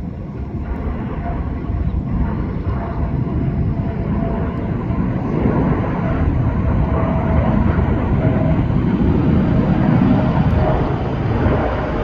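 Jet airliner engine noise swelling steadily to a peak about ten seconds in, then falling off near the end.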